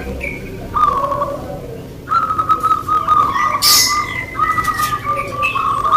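Caged zebra dove (perkutut) cooing in a long, rapid rolling trill that starts about two seconds in, with a shorter call about a second in.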